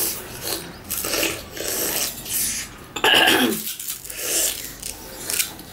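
Raw sugar cane being bitten and chewed: its fibrous stalk is torn with the teeth in repeated crunching, tearing strokes. About three seconds in comes a louder, brief sound that falls in pitch.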